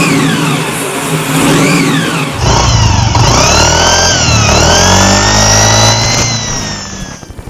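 Yamaha NMAX scooter engine revving with an aftermarket turbo-sound whistle fitted, giving a turbo-like whine that falls and rises in pitch with the revs. About two and a half seconds in the engine gets louder and the whistle climbs higher, then it all fades out near the end.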